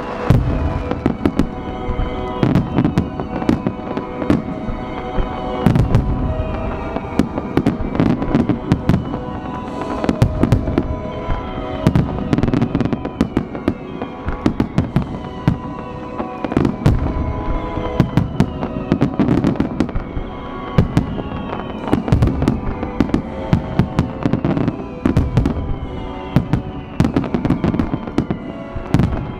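Aerial fireworks shells bursting in a dense finale barrage, many sharp bangs in rapid succession, with music playing underneath.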